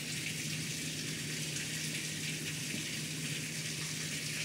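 Heavy rain pouring steadily on a patio, heard from inside through a shut door, with a steady low hum underneath.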